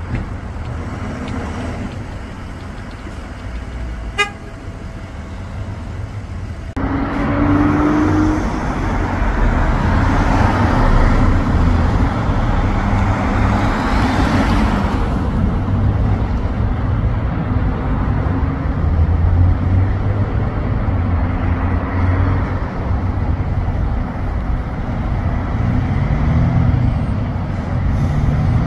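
Semi truck's diesel engine running as the tractor-trailer pulls slowly through a turn, a steady low rumble that gets much louder about seven seconds in.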